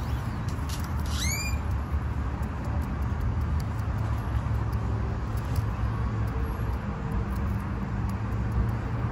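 Steady low rumble and hum of distant road traffic. About a second in, a bird gives one short swooping call.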